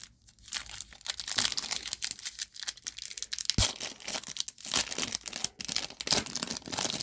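Foil trading-card pack being torn open and crinkled by hand, a run of irregular crackling and ripping with short sharp clicks.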